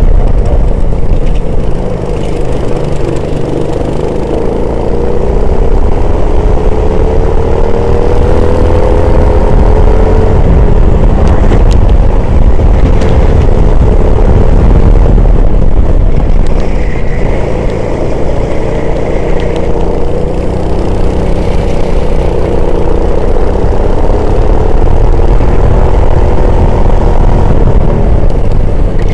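Racing vehicle's engine heard onboard at high revs under heavy wind noise on the microphone, its pitch repeatedly rising and falling as the throttle comes on and off. There is a brief high whine about two-thirds of the way through.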